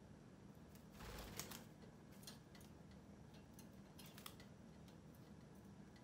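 Faint, sparse clicks of budgerigars' beaks picking at oats in a cupped palm, with a brief rustle about a second in.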